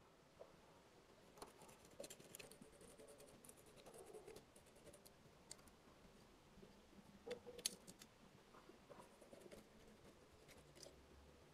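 Faint scratching and small clicks of a steel ruler and a marking tool on firebricks as lines are drawn on them, with one sharper click a little past the middle.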